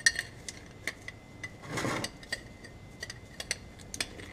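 Socket ratchet clicking irregularly as it is worked on a Toyota Tacoma front differential plug, with a sharp click right at the start and a brief rustle about two seconds in.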